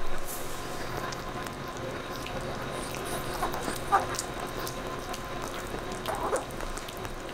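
Chihuahua gnawing on a calf neck bone: faint scattered crunching and clicks, with two brief louder sounds about four and six seconds in.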